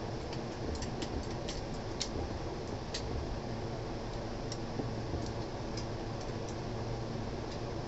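Light, irregular metal clicks of a spanner working the end-cover nuts of an electric chakki (flour-mill) motor as they are tightened, most of them in the first three seconds, over a steady low background rumble.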